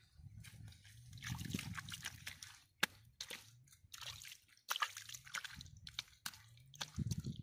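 Shallow water sloshing and splashing in irregular bursts, with a sharp click a little under three seconds in.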